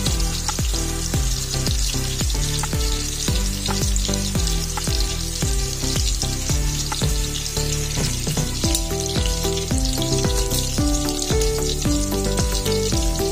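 Breaded shrimp nuggets frying in a pan of bubbling oil, a steady sizzle. Background music with a steady beat plays over it.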